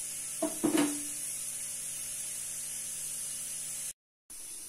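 Jalebis deep-frying in hot ghee: a steady sizzle, with two short knocks about half a second in. The sound drops out completely for a moment near the end.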